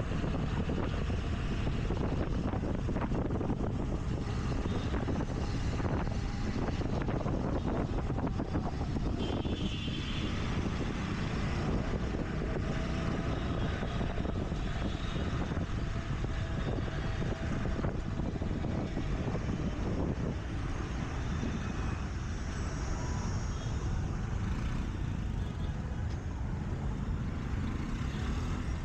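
Riding a scooter through city traffic: a steady low rumble of wind and road noise over the scooter's small engine, with the hum of surrounding vehicles.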